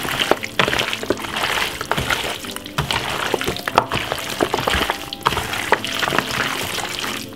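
Wet, irregular squelching and slapping of seasoned goat meat chunks being mixed in marinade by a gloved hand in a plastic bowl.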